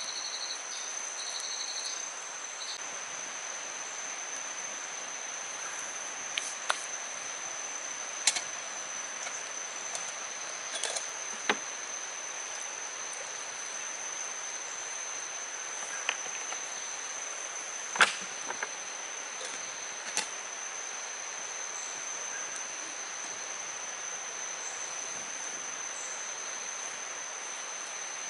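Forest insects droning: one steady high-pitched whine over an even hiss, with a pulsed chirping for the first two seconds or so. About seven sharp clicks or snaps come scattered through the middle, the loudest about 18 seconds in.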